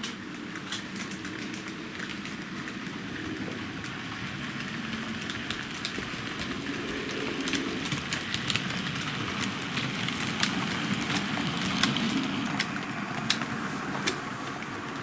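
H0-scale model trains running on the track, the BR 64 tank steam locomotive and its wagons approaching: a steady rumble of motor and wheels with many irregular clicks from wheels and rail joints, growing louder as the train nears.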